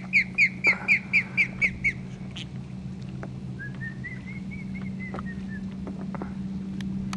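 Osprey alarm calling at a nest: a fast run of loud, sharp whistled notes, about four a second, that stops about two seconds in, then a softer string of chirps that rises and falls in pitch. It is the bird warning intruders off the nest.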